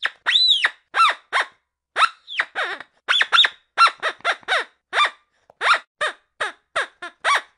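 A squeaking toy duck squeezed over and over: short, high squeaks at roughly three a second in an uneven rhythm, many dropping in pitch at the end, with one slightly longer squeak near the start.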